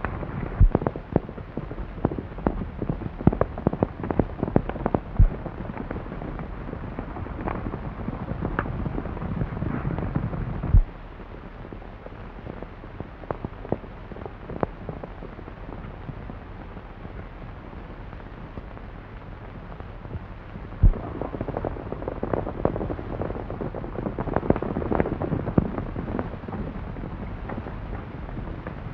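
Horses galloping and splashing through a stream: a rushing wash of water with many sharp cracks and knocks over roughly the first ten seconds. It drops to a quieter steady splashing about eleven seconds in, then picks up again with more knocks about twenty-one seconds in.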